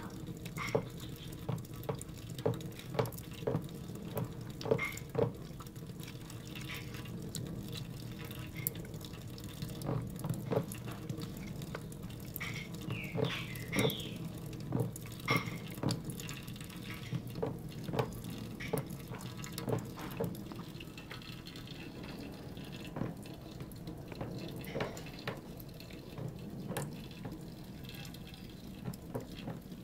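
A weaned kitten lapping water: a long run of small wet clicks, about two a second, over a low steady hum, with a brief high squeak about halfway through.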